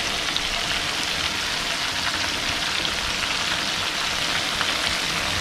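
Shrimp deep-frying in hot oil in a pan: a steady sizzle, thick with fine crackles.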